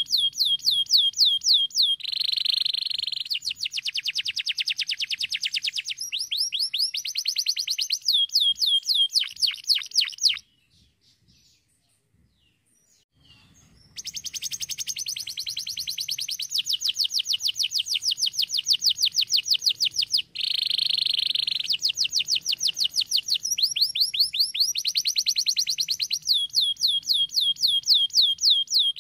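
Domestic canary singing: fast trills of rapidly repeated notes, changing to a new trill every few seconds. The song breaks off for about three seconds near the middle, then resumes.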